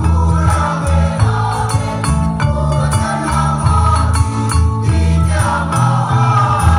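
School choir singing in parts over a heavy, low bass accompaniment, with a beat of sharp percussive strikes.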